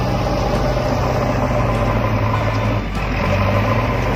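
Toy excavator driving over gravel: a steady engine-like hum with the crunch of its plastic wheels on the stones.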